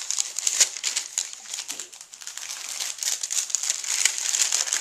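Paper and thin card rustling and crinkling as hands handle a kraft paper bag, a tea-box flap and small paper cards; a dense crackle of many small clicks.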